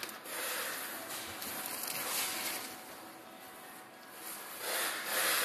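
Soft rustling and handling noise, which dies down in the middle and swells again near the end.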